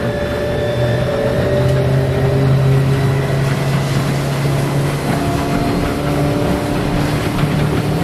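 Small boat's motor running steadily under way at speed, with a steady rush of wind and water over it.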